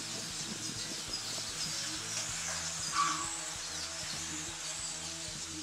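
Soft background music of held chords that change a little over two seconds in, over a steady high hiss, with one brief higher sound standing out about three seconds in.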